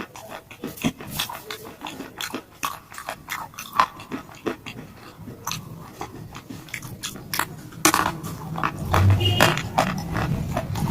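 Close-up biting and chewing of a heart-shaped piece of shalestone, crunching in many sharp, crackling snaps. Near the end it turns to denser, lower chewing.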